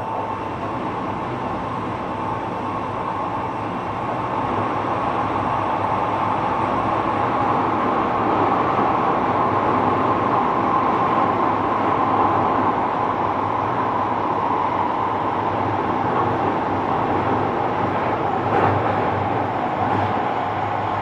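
Kobe City Subway 6000-series electric train running: a steady rumble of wheels on rail that grows louder over the first few seconds, with a faint motor whine that sinks slightly in pitch toward the end.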